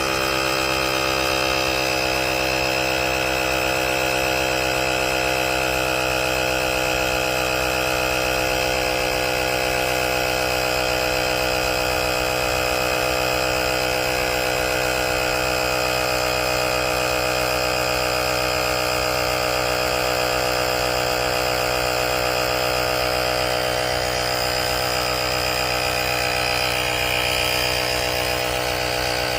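VACASSO portable tire inflator's small air compressor running steadily with an even buzzing hum, pumping a car tire up from about 30 psi.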